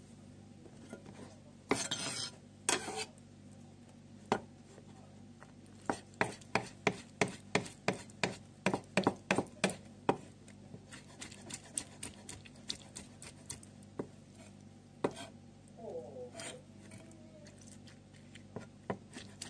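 Kitchen knife chopping shiitake mushrooms on a plastic cutting board: a quick run of sharp knocks, about four a second, from about six to ten seconds in, then lighter, sparser taps. Two brief scraping rustles come a couple of seconds in.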